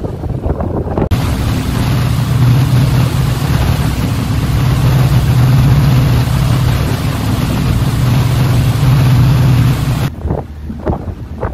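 A ferry's engine runs with a steady low drone under loud wind and water noise. The noise starts abruptly about a second in and cuts off about ten seconds in.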